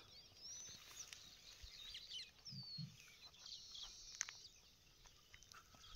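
Faint bird chirps and short whistles over quiet rural ambience, with two soft low thuds a little before halfway.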